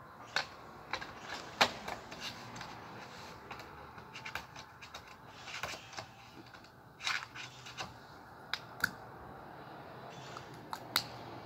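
Irregular clicks and taps of small plastic makeup items being handled and picked from a cosmetics display tray, with the loudest click about a second and a half in.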